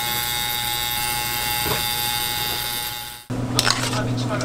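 Steady electric buzz of an ultrasonic machine, with several fixed high whining tones. About three seconds in it cuts off abruptly, giving way to a low hum and a few sharp clicks.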